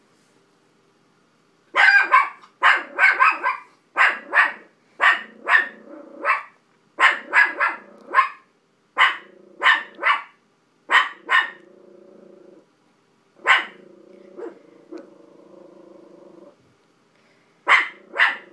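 Small dog barking at dogs on the television: after about two seconds of quiet, a rapid run of sharp barks, often in twos and threes, then a pause, a few single barks, and a quick pair near the end.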